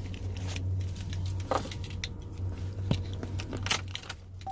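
Keys jangling, with scattered light clicks and taps as the truck's ignition key is handled just before starting, over a steady low hum.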